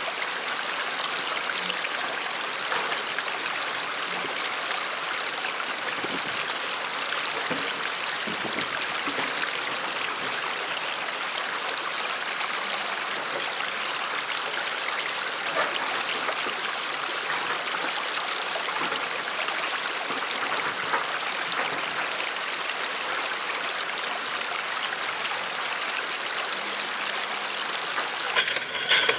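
Shallow creek running over rocks close by: a steady rush of flowing water. A few sharp knocks sound near the end.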